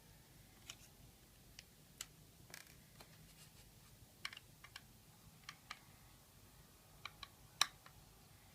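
Scattered light clicks and taps, irregular, from a laptop and its small parts being handled, with the loudest click near the end.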